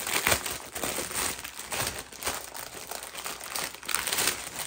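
Clear plastic packaging crinkling and rustling in irregular bursts as a bundle of bagged diamond-painting drills is pulled out of its plastic sleeve.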